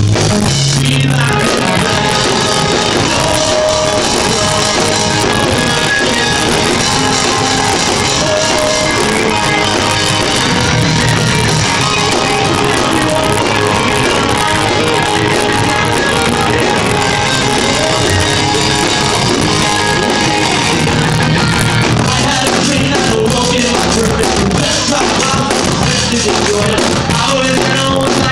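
Live rock band playing at a steady, loud level: electric guitars, bass and drum kit, with a singer's voice over them.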